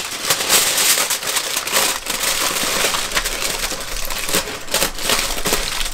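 Thick catering-grade aluminium foil crinkling and crackling as it is folded and crimped shut by hand around a packet of ribs.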